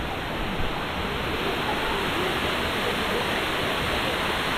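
Steady, even rush of flowing water at a natural hot spring.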